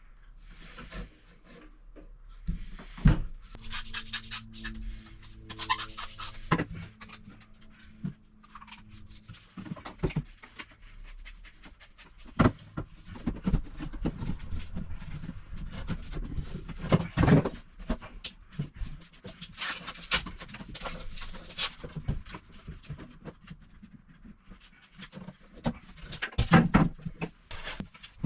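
Tongue-and-groove loft boards being handled and fitted: repeated knocks, clicks and scraping of wood, with a steady hum from about four to eight seconds in.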